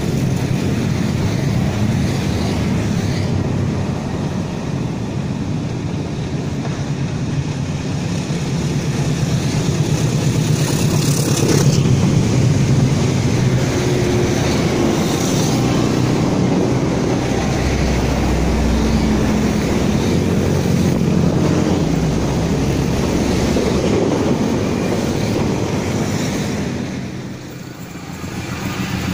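Diesel locomotive hauling a long rake of passenger coaches at speed: the engine's drone comes first, then the steady rush and rumble of the coaches rolling past.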